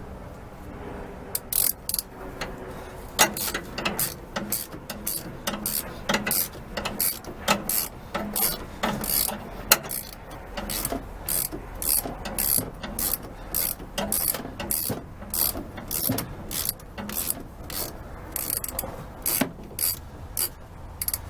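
Hand ratchet wrench clicking in quick, uneven runs of sharp ticks as a nut is worked loose, pausing now and then between strokes.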